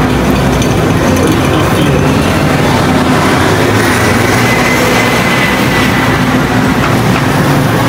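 Loud, steady street traffic noise dominated by the low hum of a heavy vehicle engine running close by, with a faint high whine in the middle.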